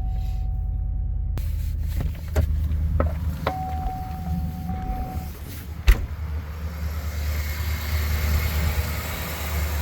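2009 GMC Sierra pickup's engine idling steadily, running normally just after starting on a freshly installed battery. Several sharp clicks and a loud knock about six seconds in sound over the idle.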